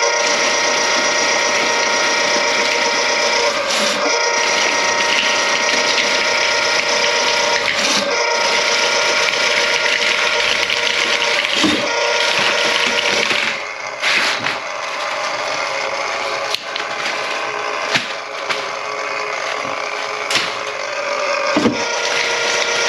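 Water noise from a backed-up kitchen sink drain partly clogged with grease: a steady rush with gurgling and a few short knocks.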